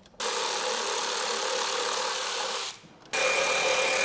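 Power driver running twice in steady spurts of about two and a half seconds, with a short pause between, backing out the screws that hold a motorcycle's chin spoiler; the second run carries a higher whine.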